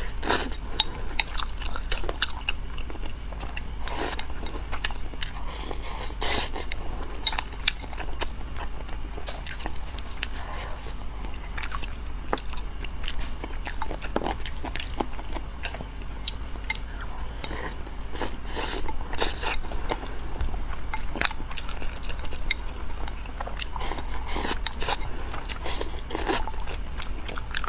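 Close-miked eating sounds: one person biting and chewing, with many short crunches and wet mouth clicks at an irregular pace throughout.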